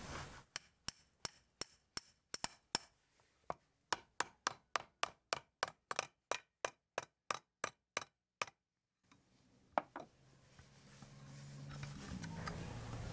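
Hammer striking the back of a hatchet whose blade is set on a metal tube on a wooden chopping block, splitting the tube open: a run of sharp strikes, uneven at first, then steady at about three a second, stopping with one last blow a second later.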